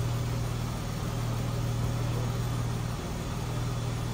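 Car engine idling steadily, a constant low hum.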